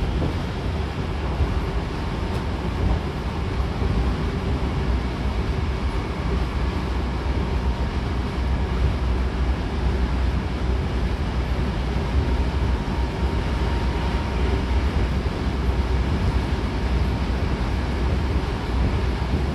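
Hankyu Kobe Line commuter train running at speed, heard from inside the car: a steady low rumble of the wheels and running gear on the rails. A faint high hum comes in for a few seconds midway.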